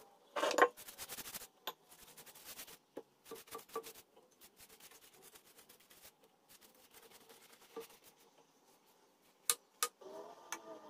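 Thin phyllo pastry sheet crinkling and rustling as it is laid and smoothed by hand in a metal baking tray, loudest about half a second in, then faint dabbing and tapping as melted butter is brushed on. Two sharp clicks come near the end.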